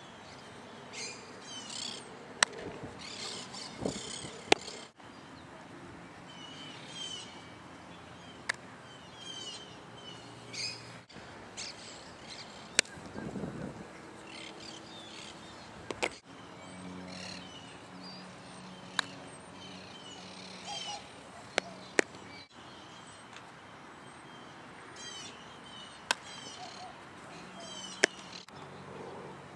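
Songbirds chirping, with about ten sharp knocks a few seconds apart from a softball fielding drill.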